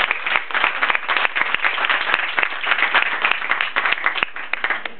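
Audience applauding: many hands clapping fast and irregularly, thinning out near the end.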